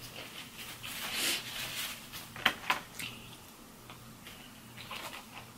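Close-up eating sounds: chewing, lip smacks and finger licking, with two sharp smacks in quick succession about two and a half seconds in.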